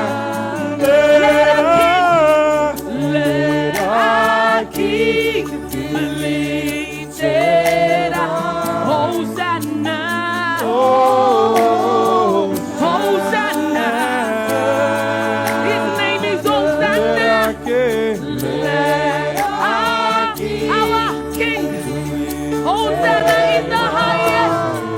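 Church worship team singing a slow gospel praise song, voices gliding and wavering over sustained low accompaniment chords that change every few seconds.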